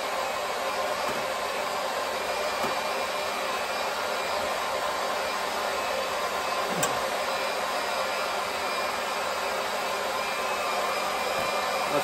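Pump running steadily as it pumps water out of a gas water heater's tank, an even whirring hum with a faint click about seven seconds in.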